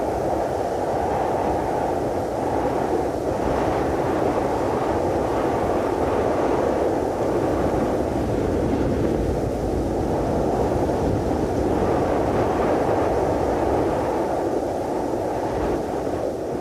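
Cold wind blowing steadily as a dense, even rush without gusts or pauses, swelling slightly a few times.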